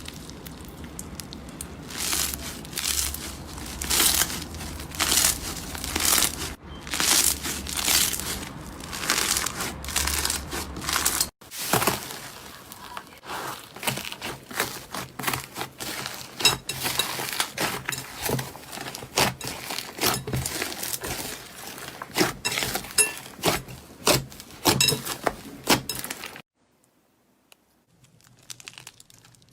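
Slime being squeezed and stretched by hand, making dense, irregular crackling and popping. There is a break about 11 seconds in, and it is nearly quiet for the last three seconds.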